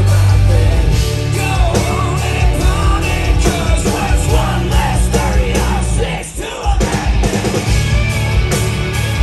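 Rock band playing live with electric guitars and drums, loud and full throughout, with a brief break about six seconds in before the band crashes back in.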